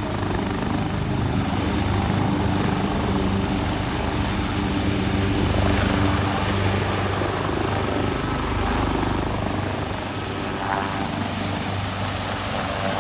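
Ambulance helicopter running nearby: a steady low rotor-and-engine drone that swells a little around the middle.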